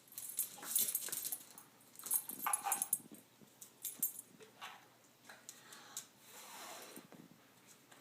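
A dog chasing and catching bubbles: irregular short bursts of sound, a second or so apart, with no barking.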